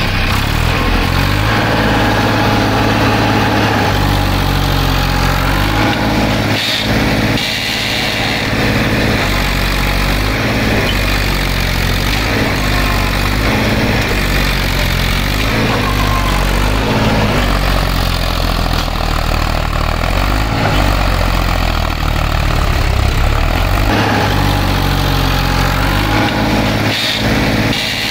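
Heavy diesel engines of farm tractors and a loaded tipper truck running steadily under the load of a recovery pull, their pitch wavering slightly.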